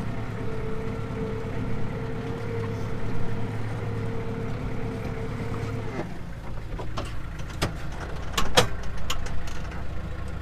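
Kubota tractor engine running, heard from inside the cab, with a steady whine that drops away about six seconds in. A few sharp clanks and rattles follow near the end.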